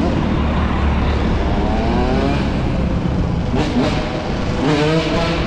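Motor vehicle engine running over a steady low rumble, rising in pitch as it accelerates about a second and a half in and again near the end.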